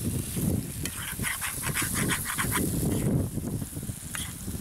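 An animal's call: a quick run of about ten short notes, around six a second, lasting about a second and a half, over a steady low rumble.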